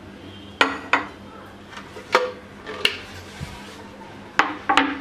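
Kitchenware being handled and set down on a countertop: about six sharp knocks and clinks in three pairs, some ringing briefly. The sources are a glass bowl of peeled potatoes being moved and a bamboo cutting board being put down.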